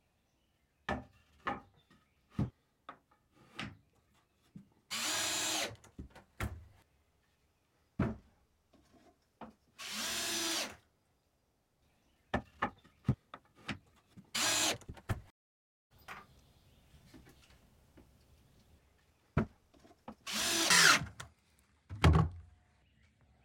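Power drill run in four short bursts of about a second each into wood, with knocks and clatter of handled timber between the runs; a loud knock follows the last burst.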